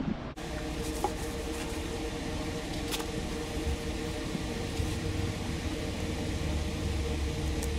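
Electric fan running with a steady hum, with a few faint clicks over it.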